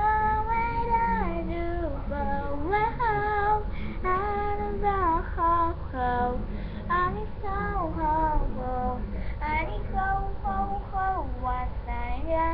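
A high voice singing a melody, holding notes and stepping up and down in pitch.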